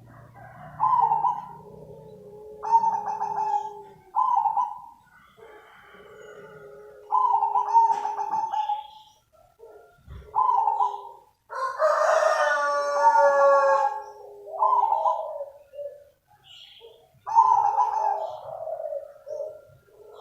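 Zebra dove cooing: short phrases of soft coos repeated every second or two. About halfway through comes one longer, louder call with many overtones.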